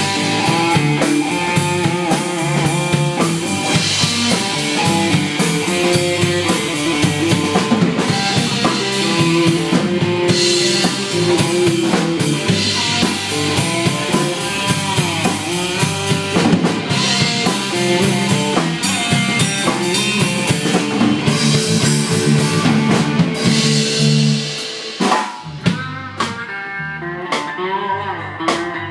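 Live electric guitar and drum kit playing loud rock-blues, the guitar soloing over driving drums. Near the end the drums mostly drop out, leaving the electric guitar playing on its own.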